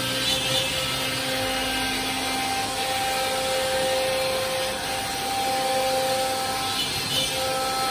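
Chencan M1325AG CNC router's spindle motor running with a steady whine while its bit routes a straight groove in a wooden board, under a continuous hiss of cutting.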